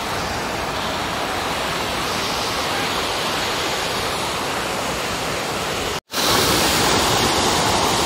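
Water rushing over low rocky cascades of a small waterfall, a steady dense hiss of falling water. It cuts out for an instant about six seconds in and comes back a little louder.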